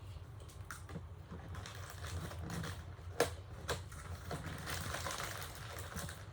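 Scattered light clicks and a soft rustle from items being handled, over a low steady hum.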